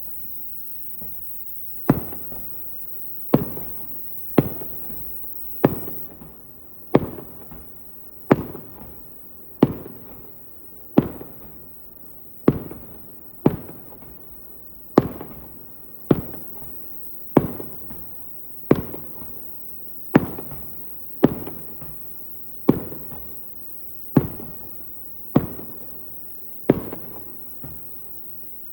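Aerial firework shells bursting one after another at a steady pace, about one bang every second and a half. Each sharp bang trails off into a fading rumble before the next.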